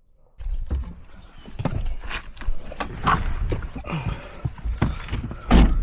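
Irregular knocks and clatter over a low rumble, with a few short bits of voice in between.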